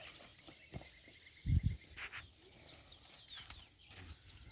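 Background birds chirping: many short, high, falling chirps, with a rapid ticking trill through the first couple of seconds. A single low, dull thump about a second and a half in is the loudest sound.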